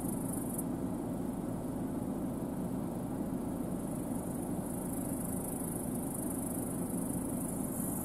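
New Holland CR10.90 twin-rotor combine harvester running steadily while harvesting barley, heard as an even low drone from across the field. A faint high hiss sits above it, dropping away about half a second in and creeping back in the second half.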